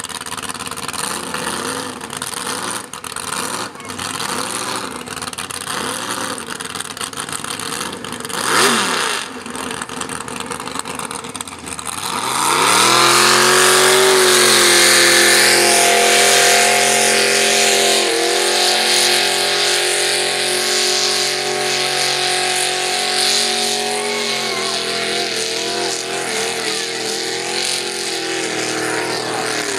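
Lifted pickup truck on mud tires idling at the start line, with a brief rev about nine seconds in. About twelve seconds in it launches at full throttle and runs hard and steady through the mud pit, tires churning mud. The engine eases off a little about two-thirds of the way through.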